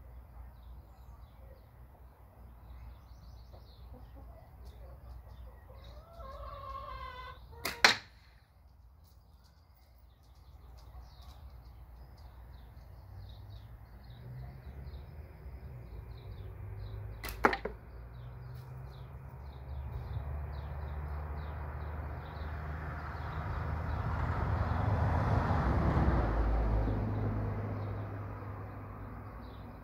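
Two sharp cracks from a Milbro catapult being shot, about ten seconds apart, with small birds chirping throughout. In the second half a low rumble swells and fades away again.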